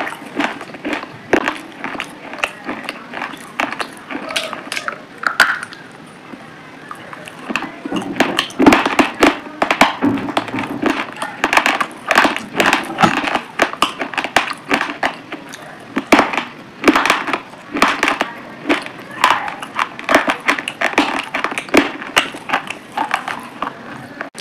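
Close-up mouth sounds of a person chewing pomegranate arils: a dense run of wet crunching and clicking as the seeds crack, with a short quieter lull about six seconds in.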